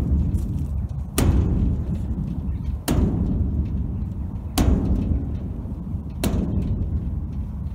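A hand slapping the side of a large diesel tank, played like a drum: four deep, evenly spaced hits about every 1.7 seconds, each ringing on briefly.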